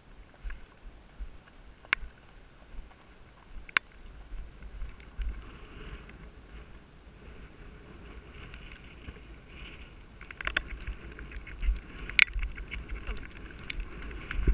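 Horse being ridden across grass, picked up by a rider's head-mounted camera: wind buffeting the microphone, with a few sharp clicks scattered through it and the movement noise growing from about five seconds in.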